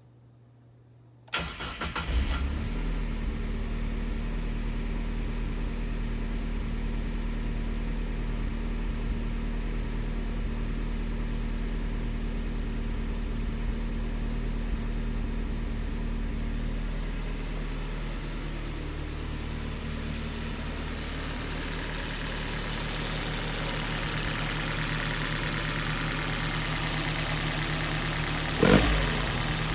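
Mazda Roadster NA6CE's 1.6-litre four-cylinder engine catching after a brief crank about a second in, on freshly fitted NGK Premium RX spark plugs, then idling steadily. Its idle note settles about halfway through, and near the end it is blipped twice.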